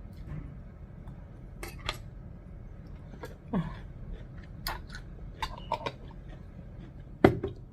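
Cutlery clinking against dishes: a series of separate sharp clinks, the loudest near the end, over a low steady hum.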